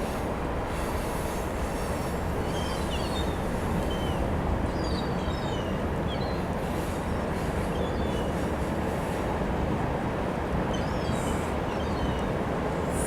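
Gulls calling, many short high calls, some falling in pitch, scattered over a steady rushing background noise.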